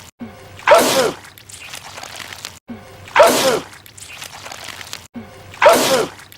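A man sneezing, the same sneeze looped three times about two and a half seconds apart: each a loud burst with a falling voiced cry, followed by a softer noisy tail and an abrupt cut to the next repeat.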